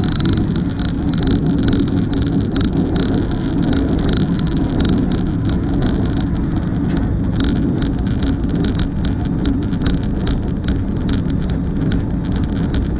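Locomotive moving along the track: a steady, loud low rumble with many short irregular clicks and rattles.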